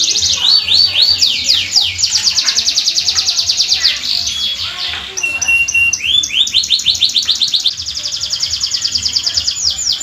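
Domestic canary in full, continuous song: long fast rolls of rapidly repeated high notes, switching from one trill to the next, with a brief steady whistled note about halfway through.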